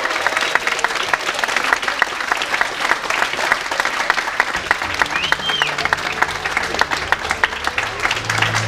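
An audience claps steadily, applauding a cosplayer as he walks on stage.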